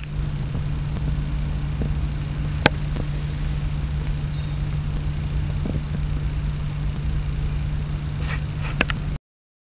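Steady low hum over a rumbling background noise, with a sharp click a little under three seconds in and another near the end; it cuts off suddenly just before the end.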